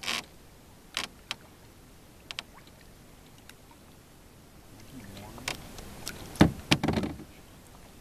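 Canoe paddling: scattered sharp knocks of a paddle against the canoe, with a cluster of louder knocks and clunks about six and a half seconds in.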